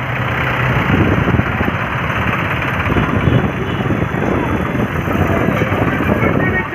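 Diesel engines of farm tractors running as a line of tractors drives past close by, a dense, steady rumble.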